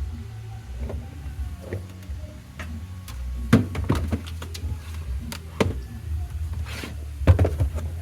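Scattered knocks and clicks of cookware and utensils being handled, loudest about three and a half seconds in and again near the end, over a steady low hum.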